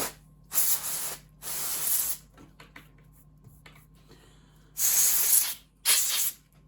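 Four short blasts of compressed air from a canned air duster, hissing, blowing dust out of the laptop's SSD bay.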